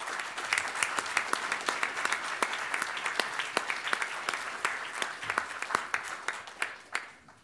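Audience applauding, with one person's claps close to the microphone standing out sharply. The applause dies away near the end.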